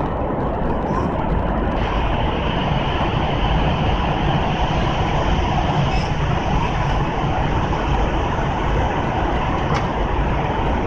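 Steady airliner cabin noise: the constant hum and rush of the aircraft's engines and airflow heard from a passenger seat.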